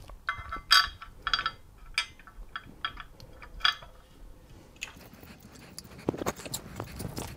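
Metal arms and wall plate of a Vonhaus full-motion TV wall mount clinking and knocking as the bracket is handled and set against the wall. It starts with a quick run of light metallic clinks, then turns to softer taps and scraping for the last few seconds.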